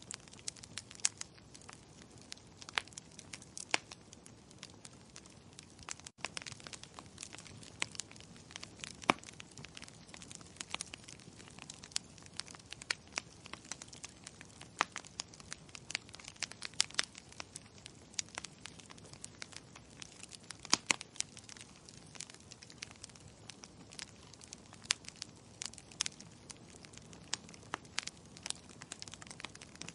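Fireplace wood fire crackling: irregular sharp pops and snaps, several a second, over a soft steady hiss.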